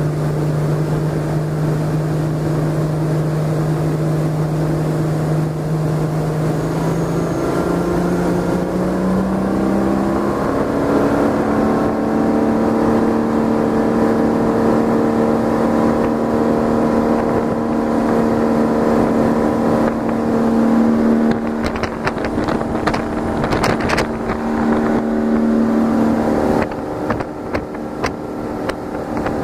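1999 MasterCraft ProStar 205's direct-drive inboard engine running the boat under way, carrying its ballast bags about 80% full. It runs steadily at first, then its pitch rises over a few seconds as the boat speeds up, and it holds at the higher speed. Near the end, wind buffets the microphone with uneven flapping.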